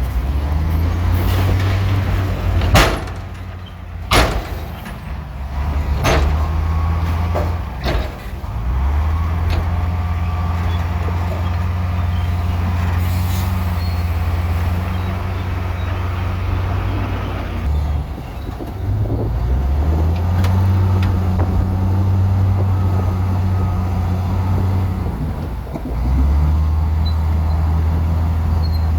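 Heavy earthmoving machine's diesel engine running under load with a deep, steady drone. Its pitch drops and rises again a few times as the throttle changes. Several sharp clanks or knocks come in the first eight seconds.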